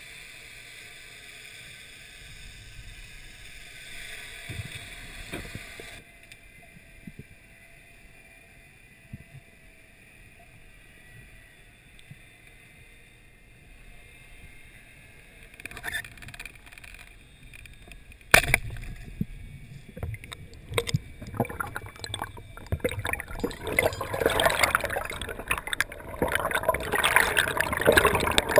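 Underwater water noise from a snorkeler's camera: a steady hiss, then a quieter stretch with a few clicks and one sharp knock about two-thirds of the way through. After the knock comes louder bubbling and splashing as the camera nears the surface.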